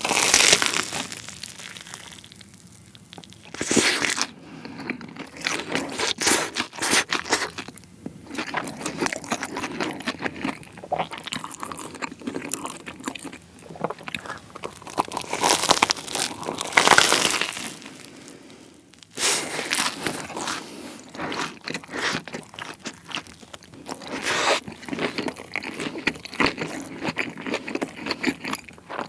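Close-miked biting and chewing of crispy-battered Korean corn dogs, the crust crunching loudly with each bite and crackling through the chewing.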